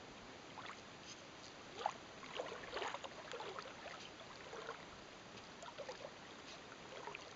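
Faint, irregular sloshing and small splashes of shallow water around the legs of someone wading slowly across a flat.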